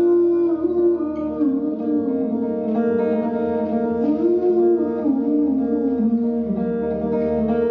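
Live music: an instrumental passage of a song played with guitar, a melody line sliding between notes over held chords.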